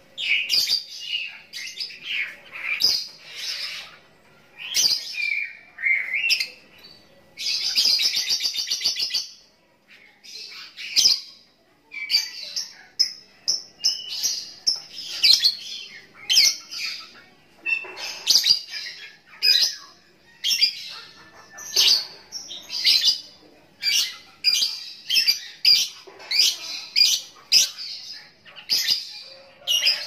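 Young lovebird singing: a busy string of high, sharp chirps, with a long rapid rattling trill of about two seconds some eight seconds in.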